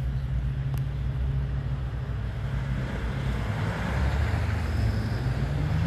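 A car engine running with a steady low hum. A hiss swells in the middle, and the engine note rises a little near the end.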